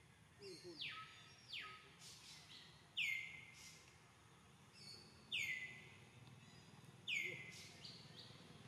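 A bird calling repeatedly, about every two seconds. Each call starts high, drops sharply in pitch and then holds briefly. Near the start come two longer calls that slide further down.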